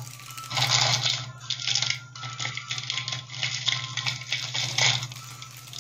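Small plastic doll accessories clicking, clattering and rustling as a child's hands handle and set them down, over a steady low hum.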